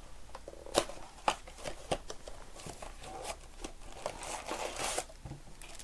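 Baseball card blaster boxes and foil packs being handled and opened: crinkling wrapper and cards with scattered clicks and taps, the crinkling busiest about four to five seconds in.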